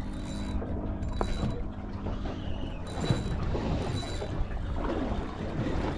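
Spinning fishing reel being wound in with a fish on the line, its mechanism clicking and whirring over a steady background of wind and water.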